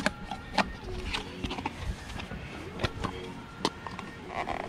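Scattered clicks and knocks of hands handling and fitting plastic parts at a scooter's air filter housing.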